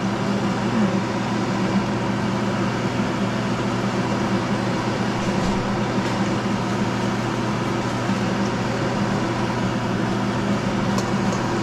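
Steady hum of a running fan motor, even and unchanging throughout, with a low drone under a broad whoosh.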